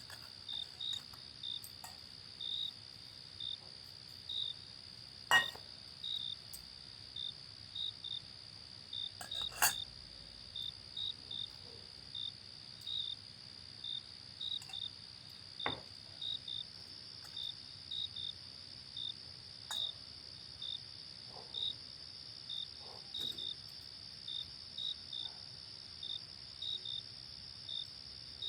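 A cricket chirping in short pulses about twice a second over a steady high whine, with a few sharp knocks now and then, the loudest about five seconds in and near ten seconds.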